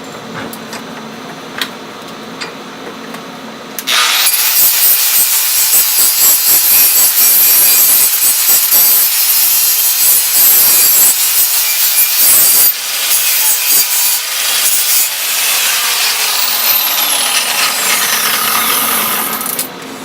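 An abrasive power tool grinding aluminum flat stock, a loud continuous rasp starting about four seconds in and stopping near the end. A falling whine runs under it over its last few seconds.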